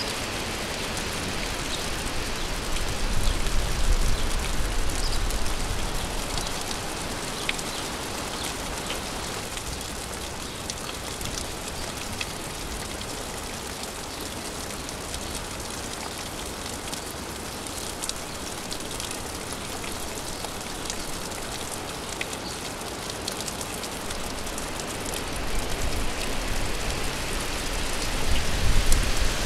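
Steady rain falling, an even hiss dotted with sharper drips. A low rumble swells up twice, a few seconds in and again near the end.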